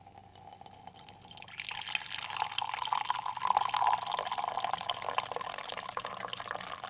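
Coffee being poured in a thin stream into a mug, a steady trickling fill that grows louder about a second and a half in, its pitch edging up slightly as it goes.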